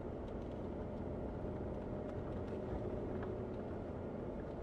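Jeep Wrangler JKU Rubicon driving at a steady pace on a snowy dirt track: engine running evenly under a constant rumble of tyre and road noise.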